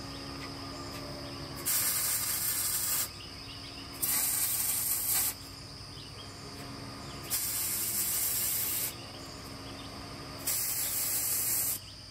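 MIG welder laying four short tack welds on a steel smoker door, each a sizzling hiss of about a second and a half, with gaps of one to two seconds between them.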